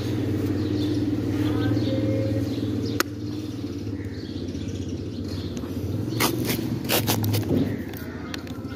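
A steady low mechanical hum throughout, with a sharp click about three seconds in as the Fujikura 90S fusion splicer's lid snaps shut. A quick cluster of handling clicks and knocks follows between about six and seven and a half seconds.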